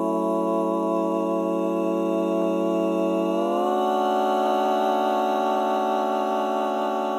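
Dance soundtrack music: one long sustained chord that moves up to a higher chord about three and a half seconds in.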